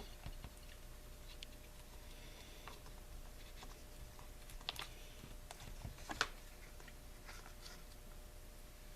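Faint, scattered small clicks and handling taps from hands working a pull-cord rope and a lighter, with a couple of sharper clicks around the middle.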